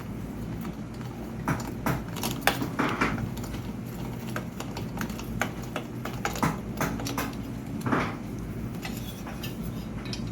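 Irregular light metallic clicks and taps as a mullion connector part is handled and screwed into place on a shutter section, over a steady low hum.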